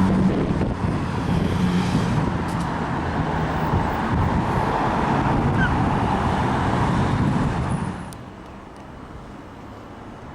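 Diesel train engine running close by with a steady hum over rumble; the sound drops away abruptly about eight seconds in, leaving quieter background noise.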